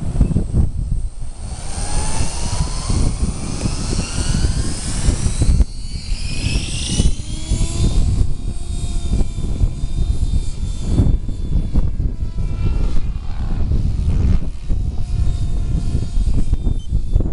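Gaui X7 electric RC helicopter spooling up: its motor and rotor whine rises over the first several seconds, then holds at a steadier pitch. Heavy wind buffets the microphone throughout.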